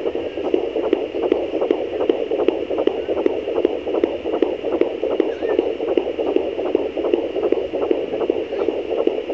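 Fetal heartbeat picked up by a pocket fetal doppler at 13 weeks of pregnancy: a fast, even whooshing pulse over the device's steady hiss.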